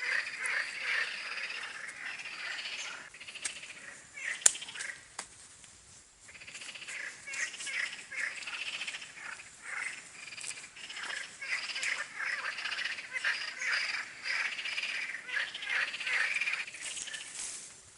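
A chorus of frogs croaking continuously, thinning out for a couple of seconds near the middle before building back up. A single sharp click sounds about four and a half seconds in.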